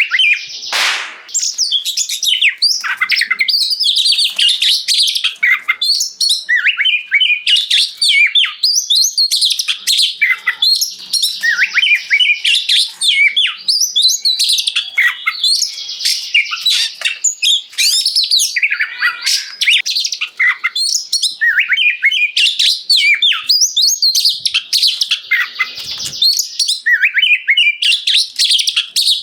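Oriental magpie-robin (kacer) in full song: a loud, continuous stream of rapid, varied high whistled notes and glides with only brief breaks, and a short harsh rasp about a second in.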